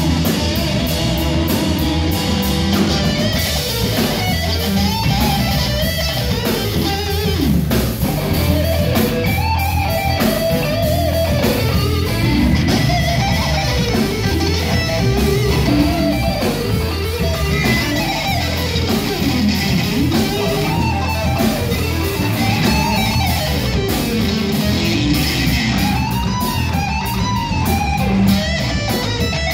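Live blues-rock band playing an instrumental passage: electric guitars trading a lead line full of bent notes that slide up and down, over bass guitar and drums.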